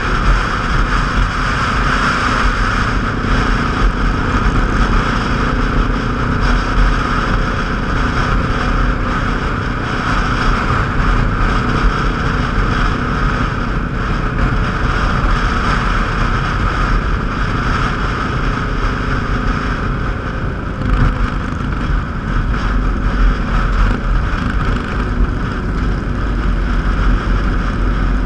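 Motorcycle engine running at a steady riding speed, mixed with the steady rush of wind on the microphone.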